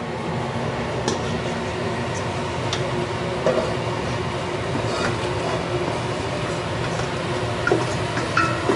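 Water being poured into a stainless steel stockpot of sautéed fish bones and shrimp shells to start a fish stock: a steady rush with a few light clinks.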